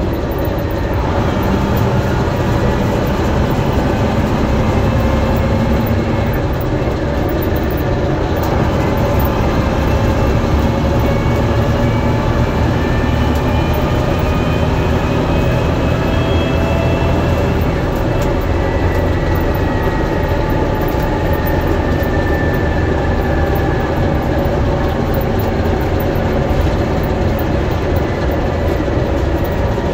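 Bristol VR double-decker bus under way, heard from the upper deck: its rear-mounted Leyland 501 six-cylinder diesel and drivetrain droning steadily. A whine climbs slowly in pitch over several seconds and drops away about eighteen seconds in.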